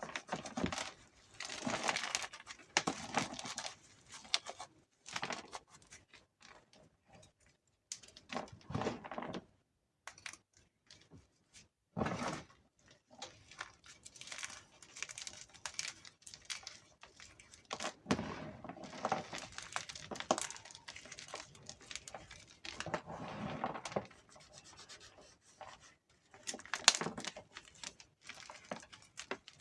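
Gym chalk crushed and crumbled between the fingers: crisp crunching and powdery rubbing in irregular bursts, with a couple of brief pauses.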